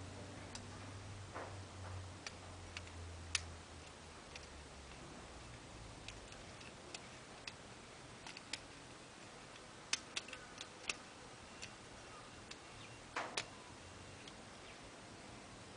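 Faint, irregular metallic clicks from a lock pick and tension wrench working the pins of a five-pin pin-tumbler doorknob lock, with a cluster of sharper clicks about ten seconds in and again near the end.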